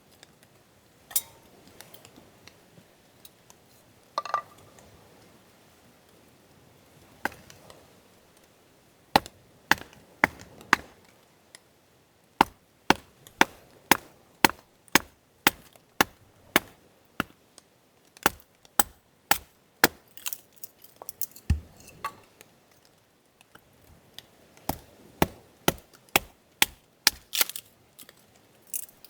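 Knife chopping food on a cutting board: a series of sharp knocks at about two a second, with a short pause partway through before the chopping resumes.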